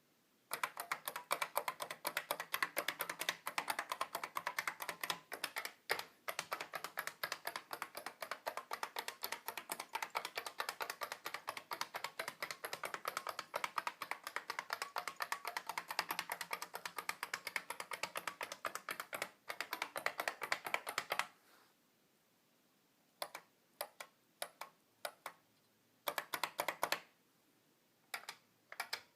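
IBM 3278 beam spring keyboard being typed on: a fast, continuous run of sharp key clicks for about twenty seconds, with a brief break near the start, then a pause and a few slower, scattered keystrokes near the end.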